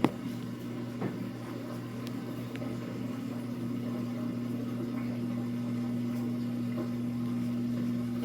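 Samsung AddWash front-loading washing machine running mid-cycle with a steady electrical hum. A sharp click sounds right at the start and a lighter knock about a second in.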